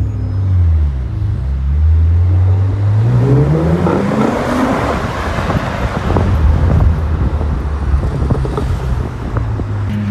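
Car with a loud exhaust: a low steady engine note, then the engine revs up, its note climbing for about three seconds as the exhaust grows louder and rougher, before dropping back to a low steady drone.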